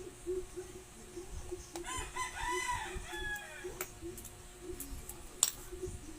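A rooster crowing once, a drawn-out call about two seconds in, with a few sharp clicks later on, the loudest near the end.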